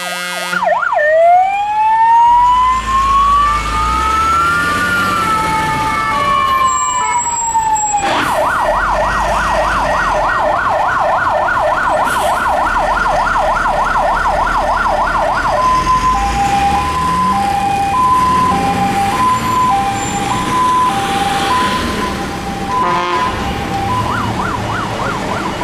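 Emergency-vehicle sirens on vehicles running on call. A slow wail rises and then falls. About eight seconds in it switches to a fast yelp of roughly five sweeps a second for several seconds, then to a two-tone high-low alternating about once a second, with a short yelp again near the end, all over a low engine rumble.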